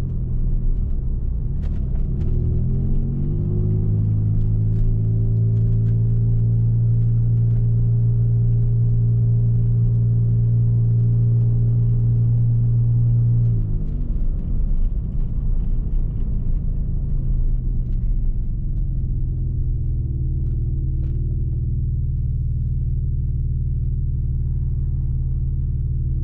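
Mazda MX-6's engine and road rumble heard from inside the closed cabin while driving. The engine note dips at the start, climbs again about two to three seconds in, and holds a steady drone while cruising. It falls off about fourteen seconds in and settles to a lower, steady hum.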